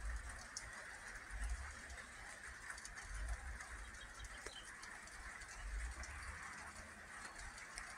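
Light rain pattering steadily, with wind gusting against the microphone and a few faint bird calls.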